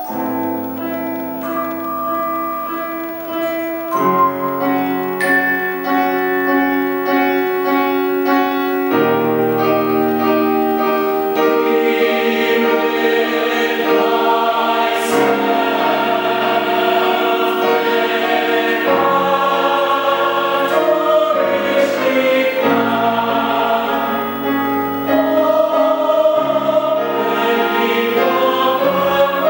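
Mixed chamber choir singing a slow, sustained sacred choral piece, holding chords that change every few seconds. It grows louder about four seconds in.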